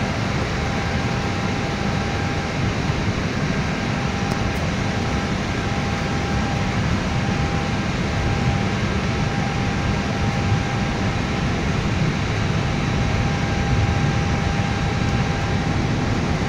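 Steady cockpit noise of an Airbus A320 lining up on the runway: a low rumble of the engines at taxi power under the hiss of the cockpit ventilation, with a faint steady whine.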